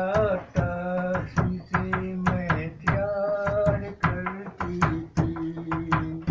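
A man singing a Hindi folk song unaccompanied, holding long notes, while beating time with his hand on a wooden bench in a steady knock of about three beats a second.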